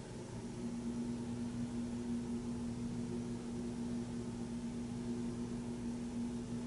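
Bagster collection truck's diesel engine and hydraulics running at a steady hum as the truck's top cover lifts open, getting a little louder about half a second in.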